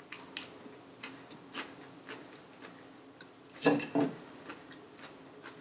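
Crisp chewing of romaine lettuce, a short crunch about every half second, then two clinks of a metal fork against the salad plate about two thirds of the way in.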